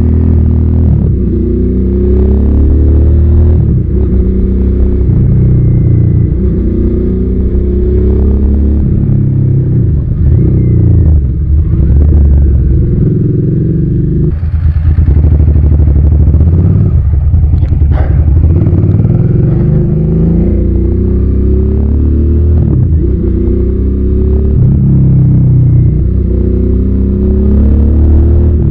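Suzuki SV650's V-twin engine pulling hard under acceleration, its pitch rising through the revs and dropping back at each upshift, again and again.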